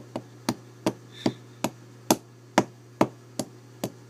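Repeated sharp taps on the old Dexter deadbolt as a part is knocked loose, about ten strikes at a steady pace of roughly two to three a second.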